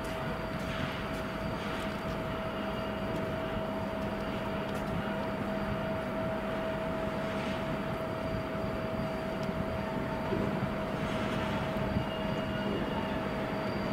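Railway train running steadily, a constant whine over an even rumble.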